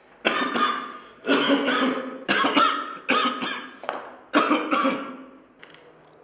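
A person coughing in five fits about a second apart, each of two or three coughs that trail off.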